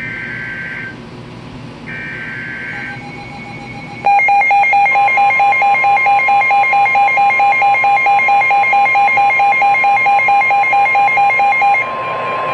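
Emergency Alert System alert tones: two short screechy digital data bursts of the end-of-message code, then a loud, rapidly pulsing alarm beep with the steady National Weather Service warning tone under it. The pulsing stops shortly before the end while the steady tone carries on.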